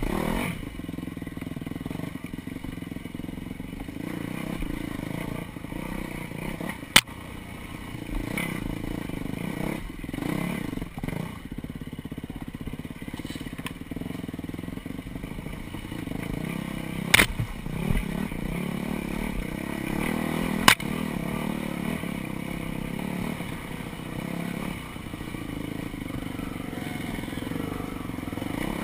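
Dirt bike engine running steadily at low revs while the bike is ridden over a rocky wooded trail. Three sharp knocks stand out, about 7, 17 and 21 seconds in.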